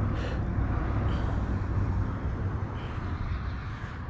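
Steady low rumble of wind on the microphone, easing off slowly, with a few faint short high sounds about a quarter second, one second and three seconds in.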